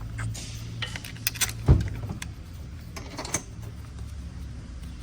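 Small steel bolts clinking and clicking as they are handled and set into the holes of a transmission valve body, with one louder knock about a second and a half in, over a steady low hum.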